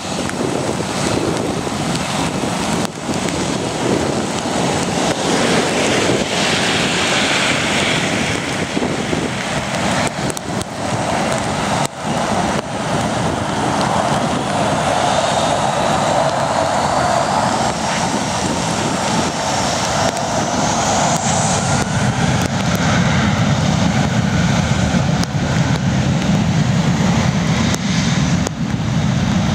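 Boeing 737-800 jet engines (CFM56-7B turbofans) running up to takeoff power as the airliner rolls away down a wet runway. A whine climbs in pitch midway, and the deep rumble grows stronger toward the end.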